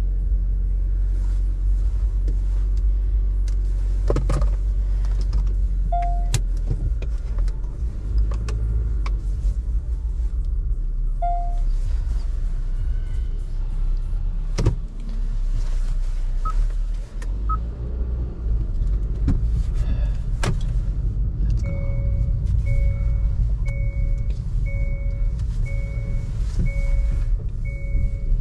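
Low, steady vehicle rumble with scattered knocks and clicks. About three-quarters of the way in, a repeating electronic beep starts, a little over one beep a second.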